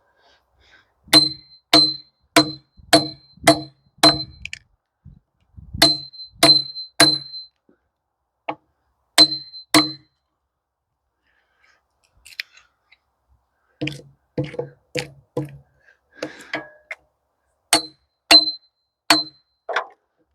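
Hatchet chopping into a Scarlet Oak log to dig out embedded screws: sharp strikes with a brief metallic ring, in runs of two to six blows about two a second, with short pauses between runs.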